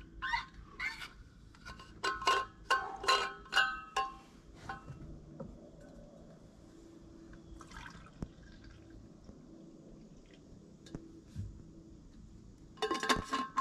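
A thermos flask being opened and coffee poured into its metal cup. A run of ringing clinks and scrapes about two seconds in, then a quieter stretch of liquid pouring.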